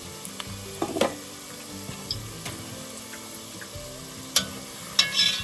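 Hush puppies deep-frying in a pan of hot oil, a steady sizzle. A few sharp clicks and knocks sound about a second in and twice near the end.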